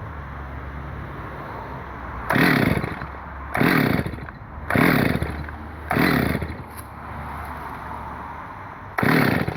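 Solo 645 two-stroke chainsaw idling, its throttle blipped five times, each rev rising and falling in pitch. The saw is running again on fresh fuel after two years standing unused.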